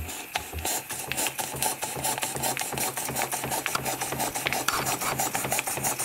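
Small model horizontal steam engine, fed by a homemade live-steam boiler, running at a fast even rhythm, with steam chuffing and mechanical clicking and knocking on each stroke. The owner says its main bearings are worn and rather sloppy, and that it leaks at the piston.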